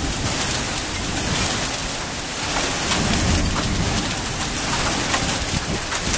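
Heavy downpour of rain and hail in a thunderstorm, pelting a tiled terrace and lawn: a dense, steady hiss with scattered sharper hits, over a low, uneven rumble.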